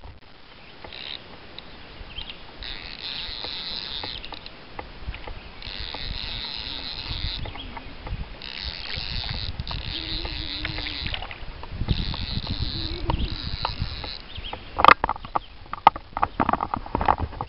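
A fly reel's click ratchet chattering in repeated bursts of about a second each as line is reeled in on a hooked brook trout. Near the end come several sharp splashes as the fish is brought up thrashing at the surface close by.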